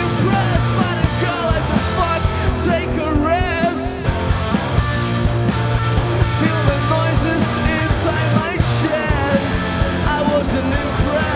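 Rock band playing live: sung vocals over electric guitar and drums, with a steady beat.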